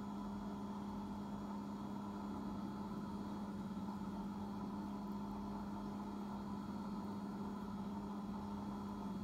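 Steady machine hum with one strong low tone.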